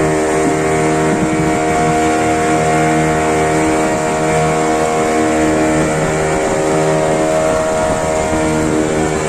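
Motorboat engine running at a steady pitch while under way, with water rushing along the hull.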